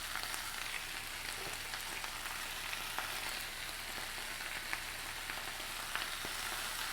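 Beef and green onions sizzling steadily in an oiled hot skillet, with small scattered crackles of spattering oil, as tofu is added.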